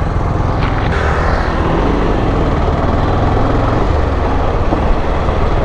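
Motorcycle engine running steadily as the bike rides along, mixed with wind and road noise.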